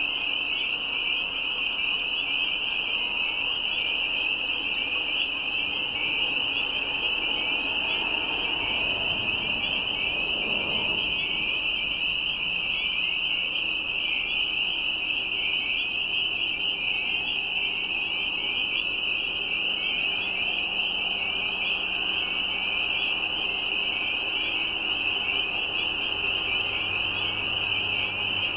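A dense chorus of spring peepers: many high, short, rising peeps overlapping so closely that they form one continuous shrill sound.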